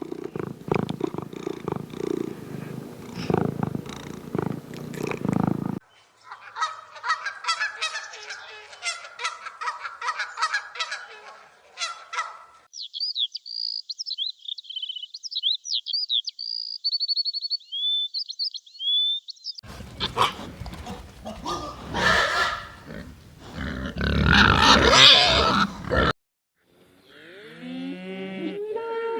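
A run of different animal recordings, each cut off abruptly before the next begins: a loud busy stretch, a stretch of rapid calls, high-pitched chirping, another loud busy stretch, and near the end a series of pitched calls that fall in pitch.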